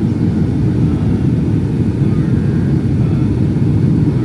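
Steady low rumble of engine and airflow noise inside the cabin of a Boeing 757-232 in flight.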